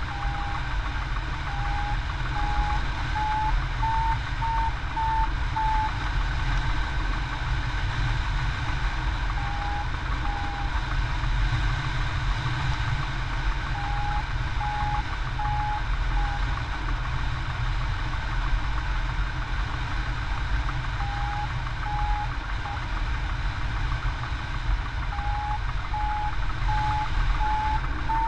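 Hang-gliding variometer beeping in runs of short beeps, about two a second, the pitch rising a little within each run as the glider climbs in rising air, then falling silent between runs. Steady wind rush on the microphone beneath.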